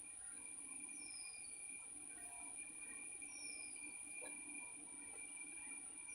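Faint bird calls in mangrove woodland: a short falling high note repeats about every two and a half seconds, over a steady high-pitched whine and a fainter steady tone.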